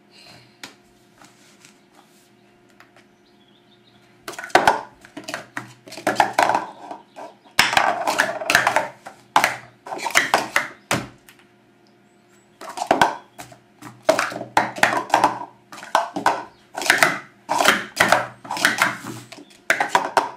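Speed Stacks plastic cups clattering as they are stacked up and down into pyramids on a stacking mat: quick flurries of sharp plastic clicks starting about four seconds in, with a break of about two seconds partway through.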